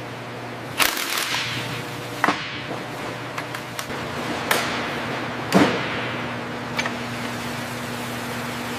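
Sharp knocks and clanks of tools on metal, about five of them, each ringing on briefly, the loudest a little past halfway. A steady low hum runs underneath, joined by a second, higher hum about halfway through.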